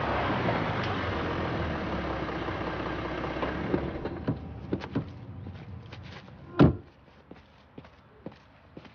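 A car drives up and comes to a stop, its engine and tyre noise fading away over the first four seconds. A few light clicks follow, then a single loud car-door thunk about two-thirds of the way in.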